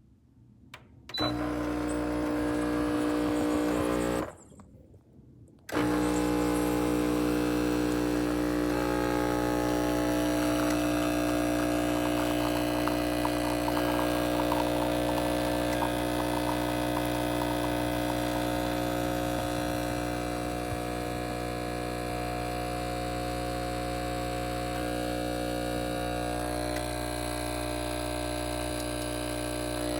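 CASABREWS espresso machine's electric pump running with a steady, loud hum. It starts about a second in, cuts out briefly around four seconds, then runs on as the machine pulls a shot.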